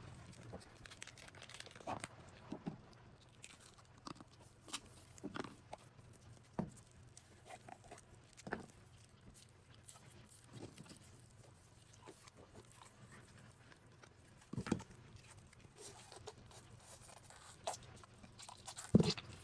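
Scattered squishes, crackles and soft knocks as old slime-filled squishy balls are torn open and the slime is squeezed out. The loudest knock comes near the end.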